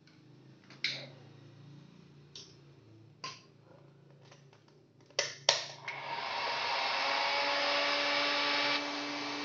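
Blue PVC pipe fittings clicking and knocking as they are handled, a handful of sharp clicks. About six seconds in, a loud steady rushing noise with a hum in it starts and carries on, easing slightly near the end.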